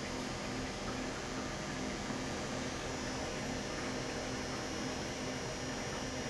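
Steady electrical hum over an even background hiss, with no distinct events.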